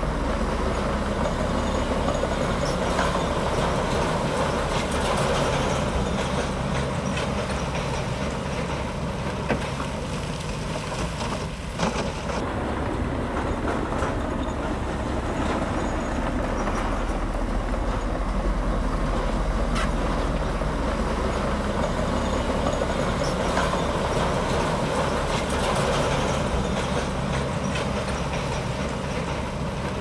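Komatsu D65P bulldozer's diesel engine running steadily while working. There is a sharp knock about ten seconds in and another just before twelve seconds.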